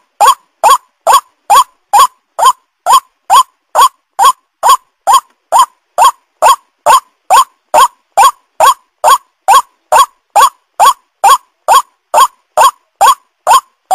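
White-breasted waterhen (ruak-ruak) calling: a loud, unbroken series of short, even calls, a little over two a second, each sweeping up in pitch. It is the waterhen's call as played to lure the birds.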